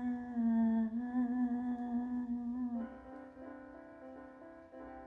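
A woman's voice holds one long sung note over keyboard chords. The voice stops about three seconds in, and the keyboard chords ring on, changing to a new chord near the end.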